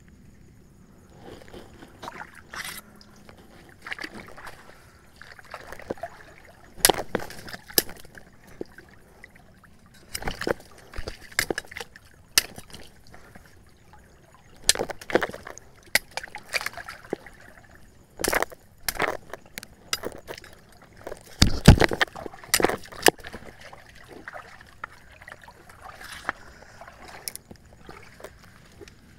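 Water sloshing and gurgling close to the microphone as a spearfisher moves through a river, broken by many irregular sharp knocks and clicks; the loudest knocks come about a quarter of the way in and again around three quarters through.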